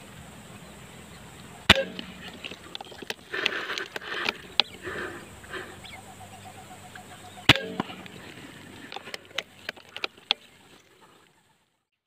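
Two shots from a PCP air rifle, each a sharp crack, about six seconds apart, with scattered noises between them; a quick run of sharp clicks follows before the sound cuts off.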